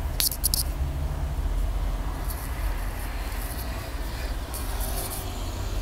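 Rustling and rubbing noise picked up close to a wired earphone's cord microphone, in short scratchy bursts over a steady low rumble.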